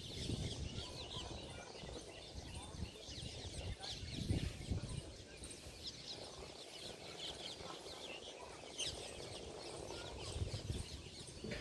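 Outdoor village ambience with many short, high bird chirps and calls, and low rumbling gusts of wind on the microphone at the start and about four seconds in.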